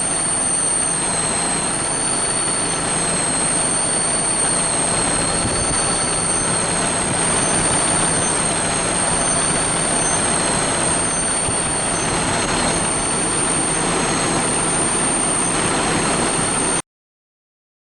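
Steady, loud machine running noise with a high, slightly wavering whine over it, which cuts off suddenly near the end.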